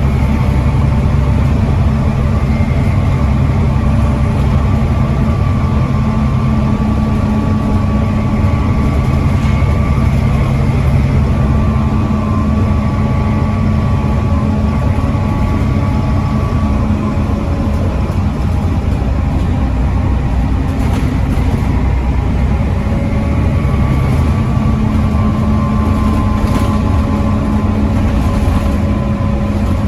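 Volvo D7C 7.3-litre diesel engine of a Volvo B7TL double-decker bus running with a steady note, which eases off about a third of the way in and picks up again near the end.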